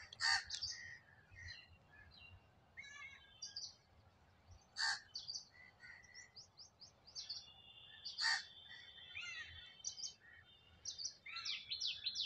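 Birds chirping and calling: three loud short calls about four seconds apart, with scattered chirps and trills between them, a thin held whistle in the middle, and fast repeated twittering near the end.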